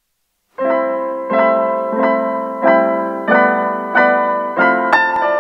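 Piano music: after about half a second of silence, notes or chords are struck at an even, unhurried pace, roughly every two-thirds of a second, each ringing on as it fades.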